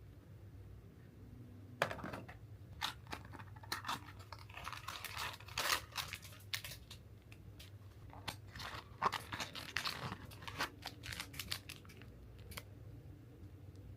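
Packaging being torn open and handled: ripping and crinkling of wrapping with scattered sharp clicks and taps, starting about two seconds in and dying away shortly before the end.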